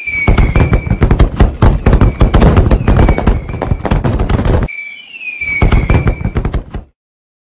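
Fireworks sound effect: a whistle sliding down in pitch, then rapid crackling bangs for about four and a half seconds. A second falling whistle and a shorter burst of crackles follow, stopping shortly before the end.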